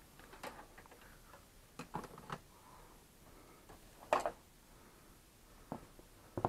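Scattered light clicks and taps from handling tools and small parts at a soldering bench, a few at a time, with a sharper knock about four seconds in and another near the end.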